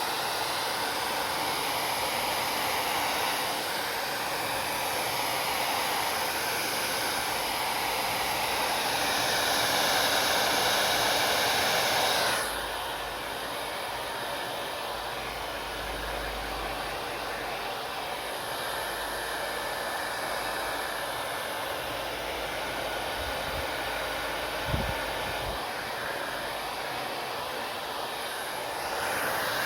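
Hand-held hair dryer blowing steadily. About twelve seconds in, the sound drops suddenly to a quieter, duller rush with more low rumble, and there is one short bump near the end.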